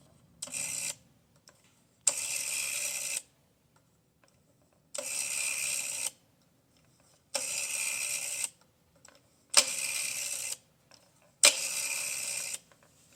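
Old rotary telephone dial spun and let go six times. Each time it whirs back to rest for about a second with a clicking rattle, beginning with a sharp click, and there is a short pause between turns.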